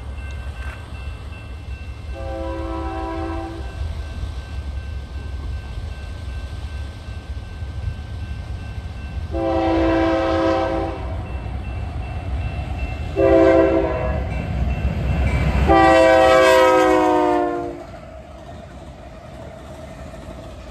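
Union Pacific diesel freight locomotives blowing a multi-chime air horn in the grade-crossing pattern: long, long, short, long. The last blast drops slightly in pitch as the lead units pass. The low rumble of the diesels runs underneath and falls away after the last blast.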